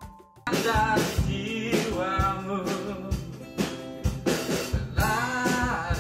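Background music: a song with a sung vocal and a drum kit starts about half a second in, after a quiet moment.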